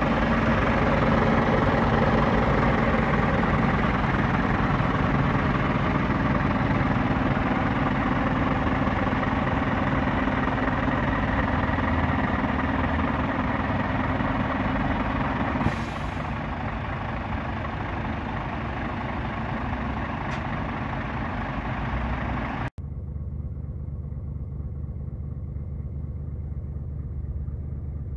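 A Scania S 500 truck's 13-litre inline-six diesel idling steadily, with a brief hiss of released air about 16 seconds in. Near the end the idle is heard muffled from inside the cab.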